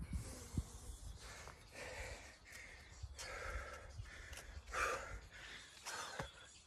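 A man breathing hard from exertion in the middle of a pull-up and burpee workout, with a series of loud gasping breaths. A thump comes about half a second in.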